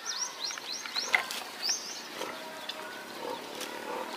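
Animal calls: a quick series of short high chirps in the first two seconds, then lower pitched calls, with a few sharp knocks.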